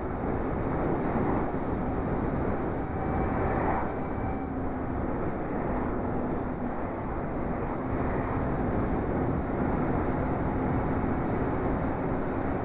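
Steady wind and tyre noise from riding an electric motorcycle at an even cruising speed, with a faint steady hum underneath and no engine sound.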